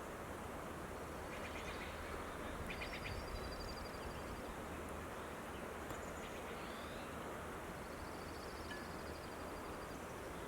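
Small songbirds calling in a forest: short rapid chirp series and high trills a few times, over a steady rushing background noise.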